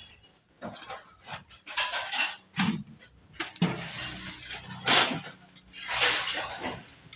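Irregular rustling and clattering of junk as scrap and sacks are sorted by hand in a scrap pile.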